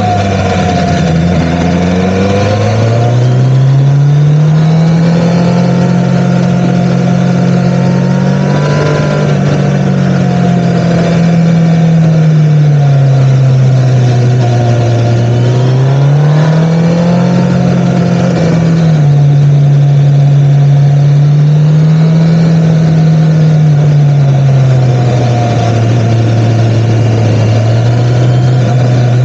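MV Agusta Brutale motorcycle engine running on the road, its note rising and falling several times as the rider opens and closes the throttle through the bends. About two-thirds through, the pitch drops suddenly, as at an upshift.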